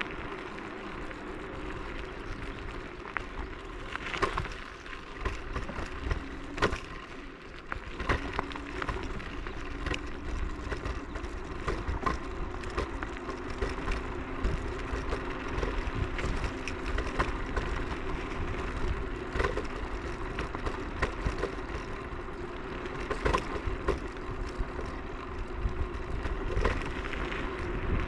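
Techlife X7S electric scooter being ridden: steady rolling and running noise with a faint steady hum, and frequent small knocks and rattles as it goes over bumps.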